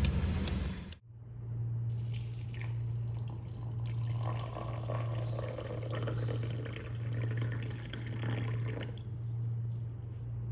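Water running and dripping for several seconds in the middle, over a steady low hum.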